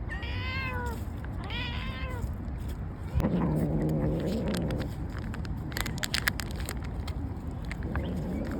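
Street cat meowing twice in quick arched calls, then a long, low, drawn-out yowl lasting about two seconds. A run of small sharp clicks and crackles follows to the end.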